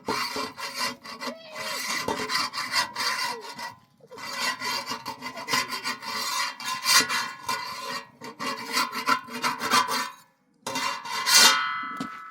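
Rapid, repeated rasping scraping in two long runs with a short pause between, then a clang with a metallic ring near the end.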